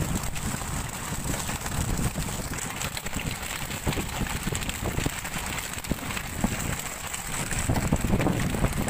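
Wind buffeting the microphone aboard a tuna fishing boat at sea, over a steady low rumble, with scattered small crackling knocks.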